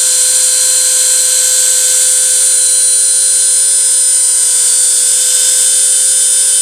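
CNC router spindle running steadily at speed: a loud, steady high-pitched whine with a lower steady tone beneath it.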